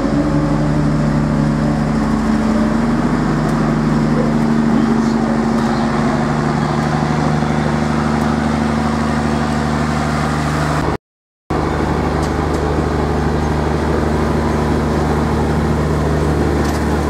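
Steady, loud engine drone from a passing illuminated carnival float, holding one unchanging pitch. The sound cuts out completely for about half a second around two-thirds of the way through.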